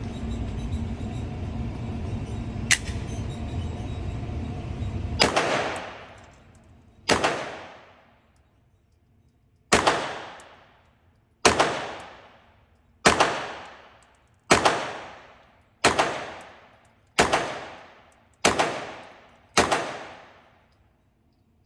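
A .22 rimfire pistol fired ten times at a slow, unhurried pace, each shot followed by about a second of echo. Before the first shot there is a steady background hum with one sharp click, and the hum stops as the shooting begins.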